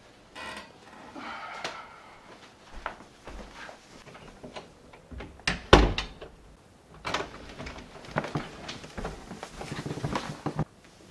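Irregular knocks and clatters, like doors or drawers being handled, with the loudest thud a little past halfway.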